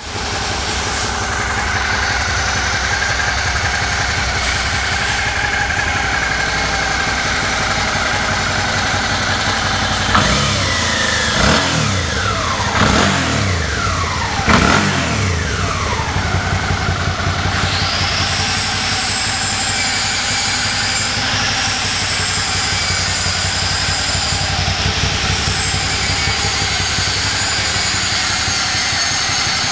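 Suzuki V-Strom 650's V-twin engine running at idle, blipped four times in quick succession about a third of the way through, each rev rising and falling back to idle. A thin high whine joins the idle about two-thirds through.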